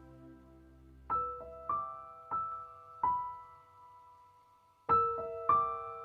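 Slow, gentle piano background music: single notes struck about every half second and left ringing, a short pause, then fuller chords near the end.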